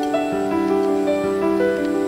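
Soft instrumental background music with held notes that change every half second or so.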